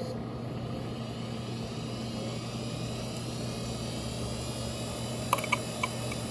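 Seagate Medalist ST34342A hard drive spinning with a steady hum and faint whine, then a few sharp head clicks a little past five seconds in. It is a failing drive caught in a loop of failing to read and power-cycling itself.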